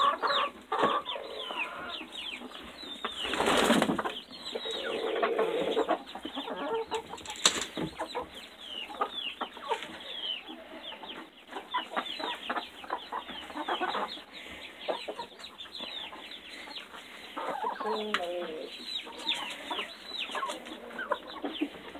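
A flock of chickens clucking and chirping while pecking at feed, a dense chatter of many short calls that fall in pitch. Two short bursts of noise stand out, about three and a half seconds in and again near seven and a half seconds.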